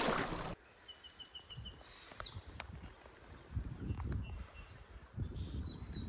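Small birds chirping in quick short notes, after a loud rush of noise that cuts off abruptly about half a second in. Low rumbles come twice in the second half.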